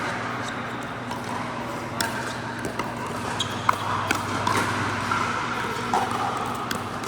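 Pickleball play: sharp, irregular knocks of paddle striking ball and ball bouncing on the court, the loudest about halfway through. A steady low hum runs underneath.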